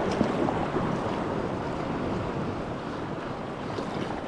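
Small sea waves washing against a rocky shore, a steady rushing, with wind buffeting the microphone.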